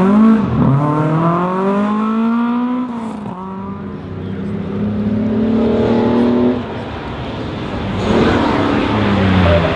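Historic rally car engine accelerating hard away, its pitch climbing through the gears with shifts about three and six and a half seconds in as it fades. From about eight seconds the next car, an old Mercedes saloon, comes in louder with a rougher, noisier engine and tyre sound.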